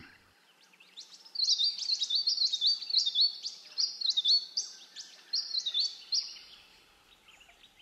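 A bird calling a rapid series of high chirps, about three a second, for about five seconds, over faint background hiss.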